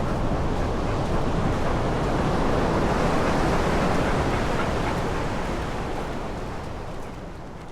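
Ocean surf breaking and washing on a sandy beach, a steady rush, fading away over the last couple of seconds.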